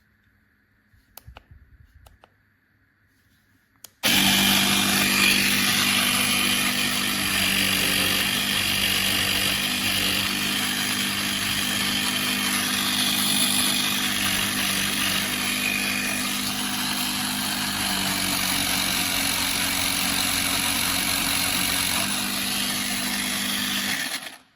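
CYCPLUS 150 PSI battery-powered portable mini air compressor switching on suddenly and running steadily with an even hum for about twenty seconds, then stopping abruptly. A few faint clicks come just before it starts.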